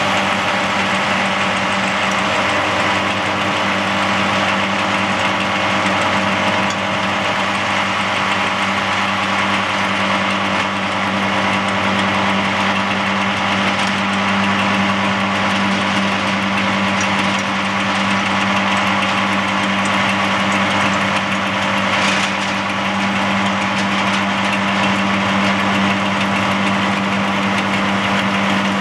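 Agri World FTCD-160.15 tractor-mounted stump grinder at work: the tractor engine and the grinder's rotor running steadily as it chews through stumps, roots and soil, a loud, even drone with a constant low hum.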